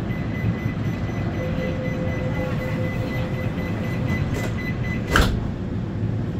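Metro train doors closing: a high warning tone sounds for about five seconds over the carriage's steady low hum, then the sliding doors shut with a loud thump about five seconds in.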